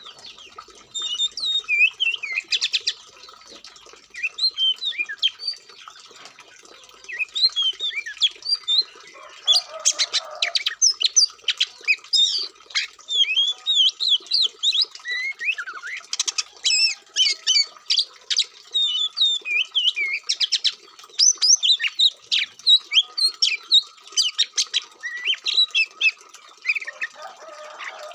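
Oriental magpie-robin (kacer) singing a fast, varied song of whistles, chirps and short rattling trills, with barely a pause.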